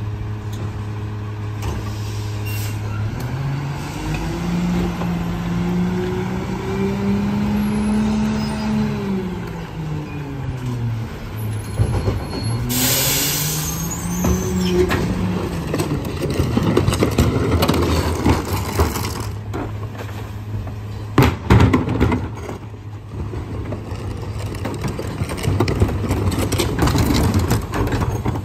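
Rear-loader garbage truck's diesel engine revving up and easing back twice as the truck pulls forward, with a short sharp air hiss from the air brakes about halfway through. Clanks and knocks follow in the second half.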